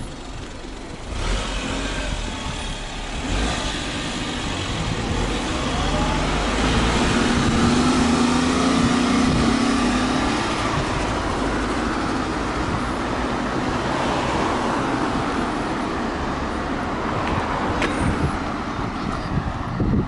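Road traffic passing close by: cars and a small truck driving past, with tyre and engine noise that swells about a second in and is loudest around the middle, where a low engine hum stands out.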